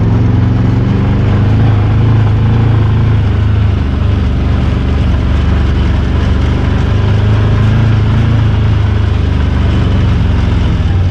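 Can-Am Maverick side-by-side's engine running at low speed, a steady low drone heard from the seat as the machine rolls slowly over grass and dirt.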